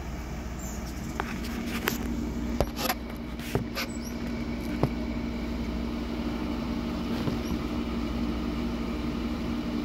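Scattered clicks and knocks of hands handling a slingshot and the phone in the first five seconds, over a steady low motor hum.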